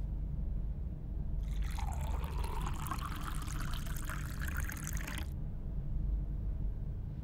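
Water poured in a thin stream into a ceramic mug for about four seconds, then stopping abruptly. A steady low hum runs underneath.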